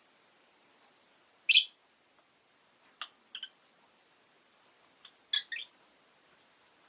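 Rosy-faced lovebirds giving short, sharp chirps in scattered bursts. The loudest comes about a second and a half in, with a quick pair around three seconds and a cluster of three near the end.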